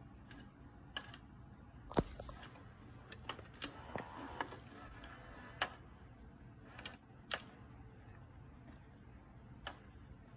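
Scattered, irregular plastic clicks and taps from a Pop and Play interactive cat toy as a cat paws at its hard plastic dome and the pop-up mouse, the loudest tap about two seconds in.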